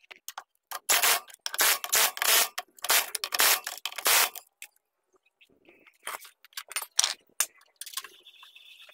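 Cordless impact wrench running lug nuts onto a car wheel in four bursts of about half a second to a second each, then several shorter bursts, tightening the wheel back on.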